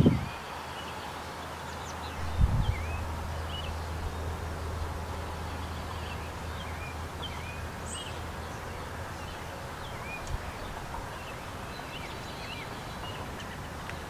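Small birds chirping and calling in scattered short, high chirps. A low thump about two and a half seconds in is followed by a steady low hum that fades out later on.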